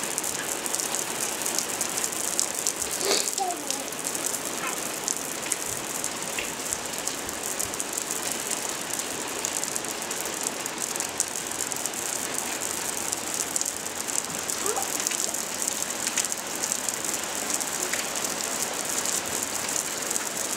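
Steady rain falling on a wooden deck and lawn: an even, unbroken hiss.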